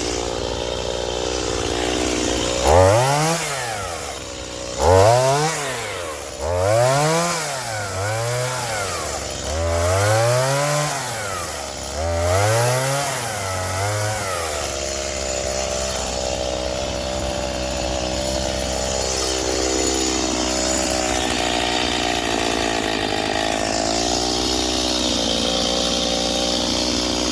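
Stihl MS210 two-stroke chainsaw idling, then revved up and let fall back five times in a row, each blip lasting about two seconds, before settling back to a steady idle.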